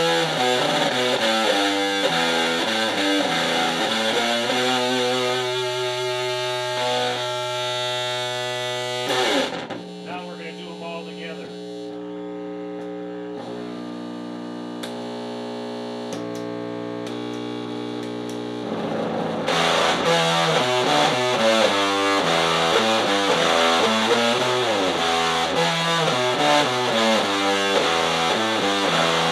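Distorted electric guitar played through a Wall of Sound pedal into a homemade cassette-player Junkbox amp cranked to full volume. Riffing at first, then about ten seconds in it drops to quieter, long-held notes, and a little before the end it returns to louder, busier riffing.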